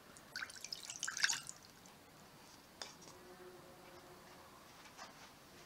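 Water splashing and dripping in a small stainless steel saucepan, busiest in the first second and a half, then a few single drips or clicks.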